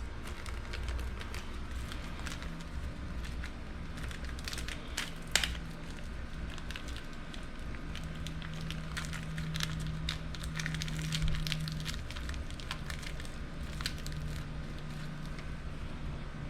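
Hands fitting the small-end needle bearing and piston of a two-stroke dirt-bike engine: scattered light clicks, scrapes and rustles of handled parts, with one sharper click about five seconds in, over a faint steady low hum.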